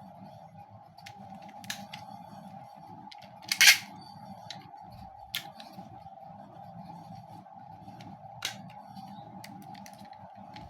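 Sharp plastic clicks and snaps from handling a cheap Beyblade top and its launcher, four distinct ones, the loudest about three and a half seconds in. The top is sticking on the launcher as it is forced on.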